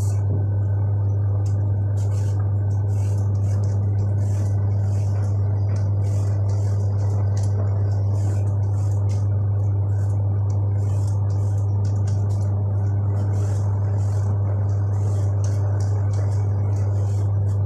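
A steady low hum runs throughout and is the loudest sound. Over it come repeated short, quick scrapes of a handheld vegetable peeler stripping the skin off a carrot.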